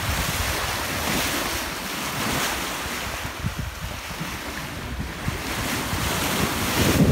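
Rushing and splashing of water along the hull of a 1964 Buchanan sailing yacht moving fast under sail, with waves breaking against the bow, mixed with wind buffeting the microphone. It surges unevenly and grows louder near the end.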